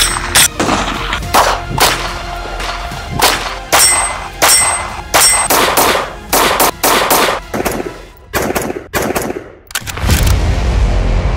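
Rifle gunshots in an edited montage, about fifteen sharp reports at irregular spacing, some in quick pairs, over a background music bed. About ten seconds in the shots stop and a loud low rumbling swell takes over.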